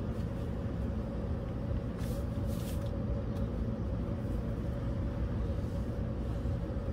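Steady low mechanical hum of workshop machinery, with a held tone above it. A brief soft brushing sound comes about two seconds in.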